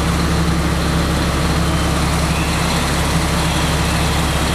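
A motor vehicle engine running steadily, a low even hum over a constant wash of noise.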